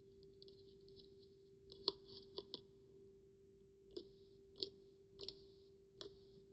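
Slime being handled: soft crackling with about seven sharper clicking pops, the first near the middle and the rest spread through the second half, over a faint steady hum.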